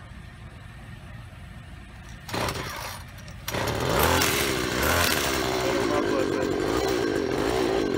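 25cc two-stroke string trimmer engine being pull-started: it fires briefly for about a second, then catches about a second later, revs up and runs steadily.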